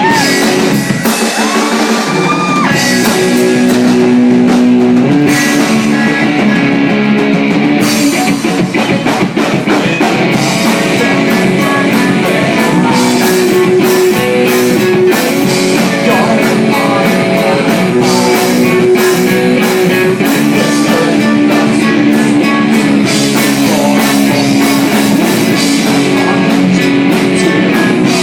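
A rock band playing live: guitar and drum kit, loud and continuous.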